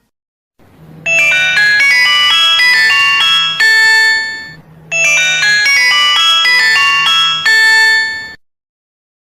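Nokia mobile phone ringtone: a short, bright melody of quick notes over a low bass part, starting about a second in, played through twice and then stopping.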